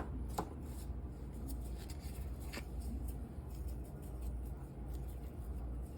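Faint light taps and rustling of a seasoning container and measuring spoon as seasoning is measured out and sprinkled, over a low steady hum.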